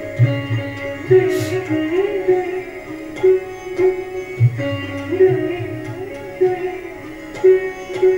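Indian classical-style instrumental music: a melody that bends up and down in pitch over a steady drone, with sharp hand-drum strokes.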